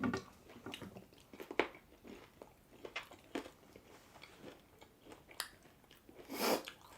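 Close-up chewing and biting, with small wet clicks and crunches of food in the mouth, from eating pulled pork sandwiches and crispy fries. A louder, longer crunching noise comes about six seconds in.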